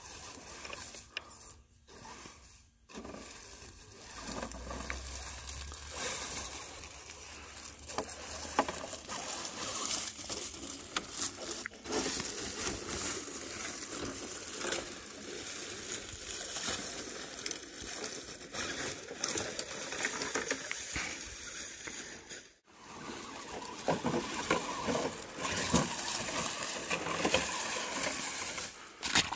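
Dry leaf litter crackling and rustling under the tyres of an RGT Rock Hammer RC rock crawler as it drives over the forest floor, with many small crunches and clicks.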